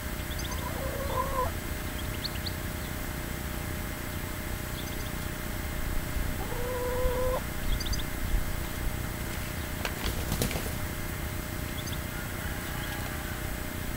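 An animal calls twice, each a drawn-out, steady-pitched call of about a second, the first right at the start and the second about six seconds in. Short high bird chirps come and go, over a low rumble.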